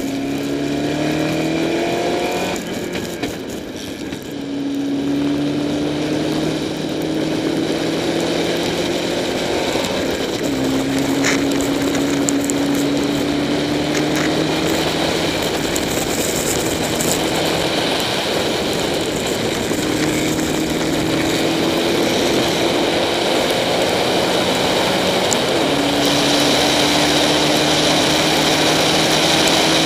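Spec Racer Ford's engine heard from the cockpit, revving up through the gears on a wet track: the engine note climbs in pitch and drops back at each upshift, several times, with a brief lift off the throttle about three seconds in. A steady hiss of water spray runs under it.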